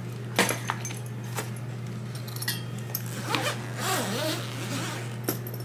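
Soft-sided carry-on bag set down on a luggage rack with a knock, followed by handling clicks and then its zipper being pulled open in a few rasping strokes. A steady low hum runs underneath.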